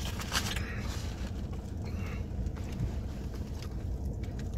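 Steady low rumble inside a parked car, with a few faint rustles and clicks from eating.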